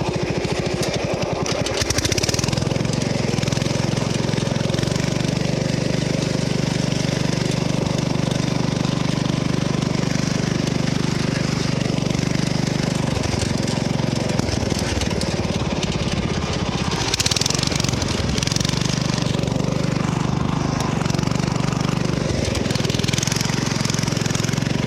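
Riding lawn mower's engine running steadily, its note breaking up briefly a little past halfway, with a short burst of hiss soon after.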